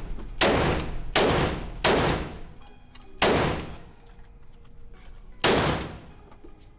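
Handgun fired five times at an irregular pace: three quick shots about three-quarters of a second apart, then two more spaced further out, each shot followed by a fading echo.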